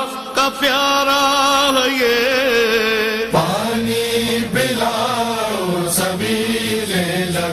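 Male voices chanting a slow, drawn-out melody of an Urdu noha, holding long notes that slide from one pitch to the next.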